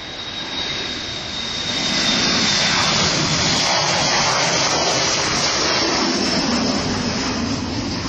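Boeing 737-400's CFM56-3 turbofan engines at takeoff power as the airliner accelerates down the runway past the listener. A high whine over a loud roar builds to a peak about two seconds in, the whine sinking a little in pitch as the aircraft passes. The roar stays loud and eases slightly near the end.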